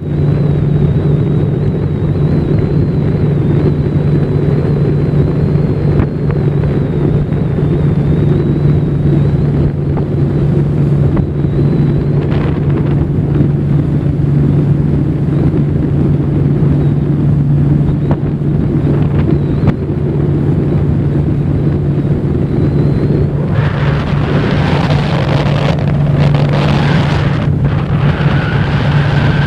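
Boat motor running steadily with a constant low hum, wind buffeting the microphone. A louder, hissier noise joins about three quarters of the way through.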